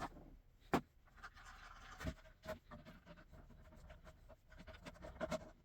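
A nut driver turning an M5 bolt into its nut in a 3D-printed plastic part: faint scraping and rubbing with a few sharp clicks and knocks.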